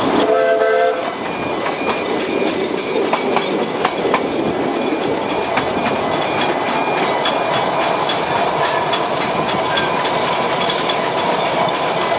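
Narrow-gauge steam train running, heard from an open carriage window: the locomotive's whistle sounds briefly at the start and cuts off about a second in, then the coaches run on with a steady rumble and clicking of wheels over rail joints.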